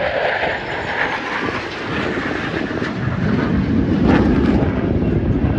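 Fighter jet engines roaring as the jets fly past, a loud steady noise that deepens into a stronger rumble about three seconds in.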